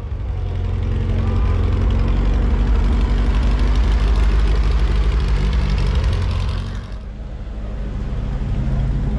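Baja-style VW Beetle's rear engine running loudly through its open exhaust as the car drives slowly past, falling away about seven seconds in. Another car's engine comes up near the end.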